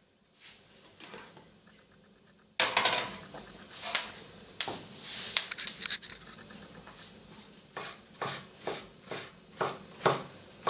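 A burst of knocks and clatter about two and a half seconds in, then a knife slicing king oyster mushroom on a wooden cutting board, about two strokes a second, near the end.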